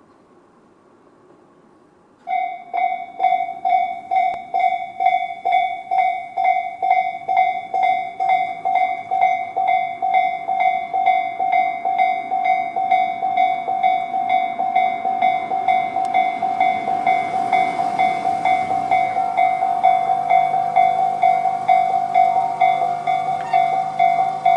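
Railway level-crossing warning bells of the Tobu 'sound C' type starting about two seconds in: an electronic bell tone pulsing about twice a second. In the second half the noise of an approaching train rises under the bells.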